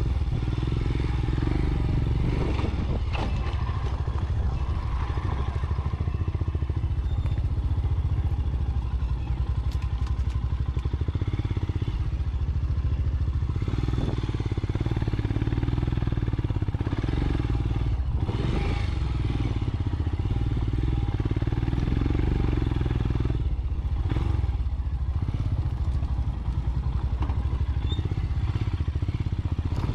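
Royal Enfield Scram 411's single-cylinder engine running as the bike is ridden over rough dirt, the engine note easing off and picking up again several times. A few knocks and clatter come from the bike jolting over bumps.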